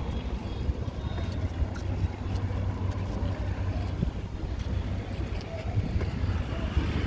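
Wind buffeting the microphone as a steady low rumble, with faint scattered clicks.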